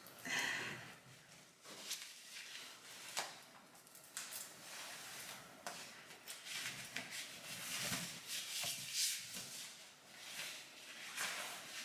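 Scattered rustling, light clicks and knocks of things being handled close to the microphone, with no speech.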